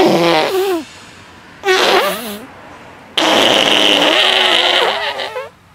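A boy laughing hard in three bursts, the last one long and the loudest, starting about three seconds in.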